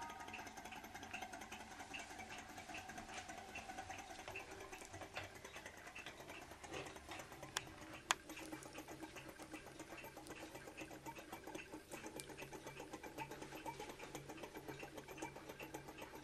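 Small L-9 thermoacoustic engine running, its single piston and flywheel ticking faintly in a fast, even rhythm. Two sharper clicks come about seven and a half and eight seconds in.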